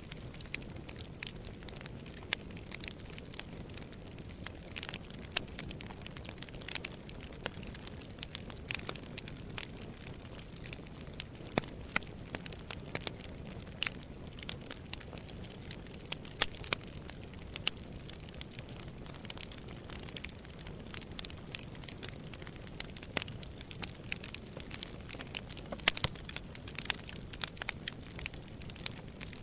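Fire burning in a fireplace, crackling with irregular sharp pops over a steady low rush of flame.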